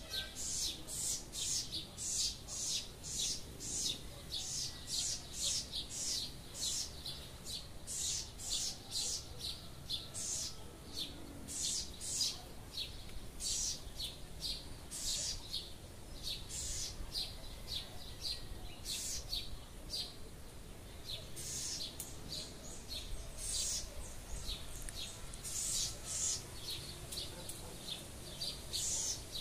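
A wren (ratonera) singing: a long run of short, high chirping notes, several a second, with a brief lull about two-thirds of the way through.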